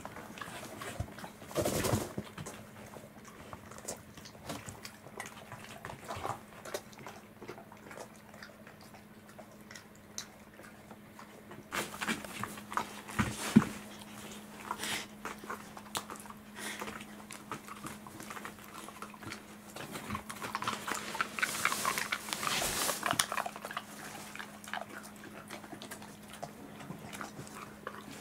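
Welsh corgis licking and chewing at food from a hand: irregular small clicks and mouth noises, busiest in the middle and about two-thirds through, over a faint steady hum.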